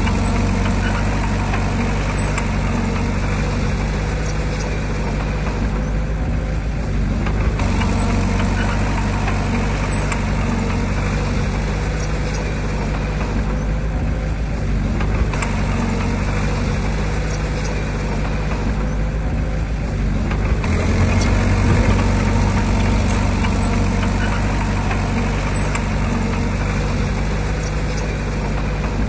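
Heavy diesel engine of earthmoving machinery running steadily, growing louder for a few seconds about two-thirds of the way through as it works harder.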